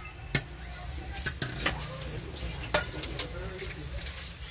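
Kitchen clatter around a pot on a gas stove: a few sharp clicks and knocks, about four in the first three seconds, over a steady low hum and hiss.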